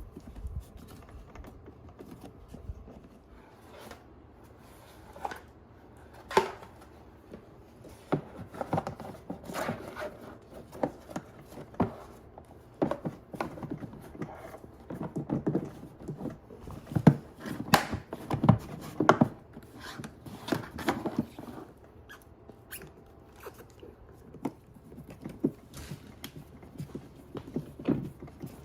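Irregular knocks, clunks and clicks as the parts of a toddler bumper ride-on car are handled and fitted together during assembly, busiest around the middle.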